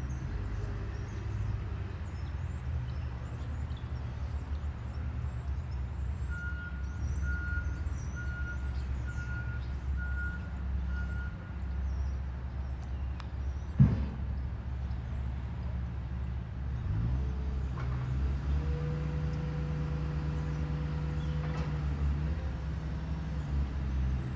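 Steady low diesel engine rumble of heavy vehicles. A run of about seven evenly spaced high beeps sounds in the middle, a single sharp knock comes a little past halfway, and a steady hum joins the rumble in the last third.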